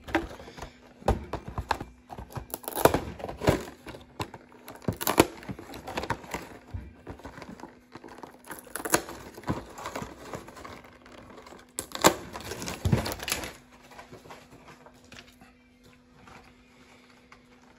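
Cardboard collection box and heavy packing tape being handled and peeled open by hand: irregular crinkling, tearing and small knocks, busiest around twelve to thirteen seconds in and sparser near the end.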